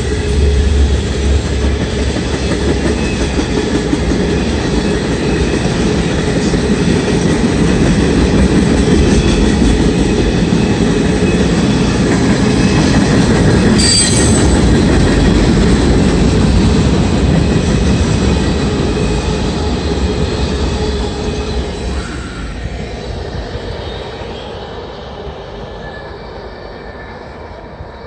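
Norfolk Southern freight train's cars rolling past close by: a steady heavy rumble of steel wheels on rail, with thin high wheel squeal over it. Over the last several seconds the sound fades as the end of the train passes and recedes.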